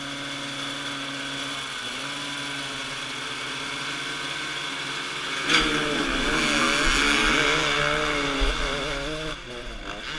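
Several dirt-bike engines hold steady revs on the start line. About five and a half seconds in, they rise suddenly to full throttle as the bikes launch, their pitches wavering as they climb the loose rocky slope under load.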